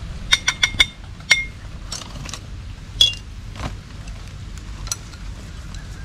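Bowls and chopsticks clinking as the meal is laid out: a quick run of four ringing clinks near the start, another a moment later, and one more about halfway through.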